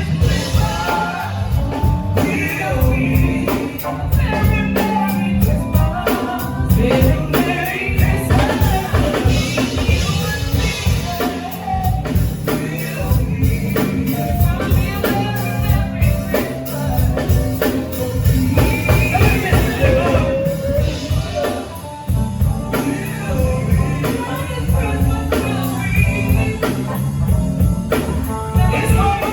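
Live band music with drums and a lead singer, in a gospel style.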